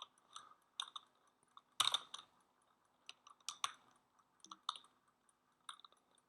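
Faint, irregular clicks of computer keyboard keys, about a dozen spread unevenly, the loudest about two seconds in.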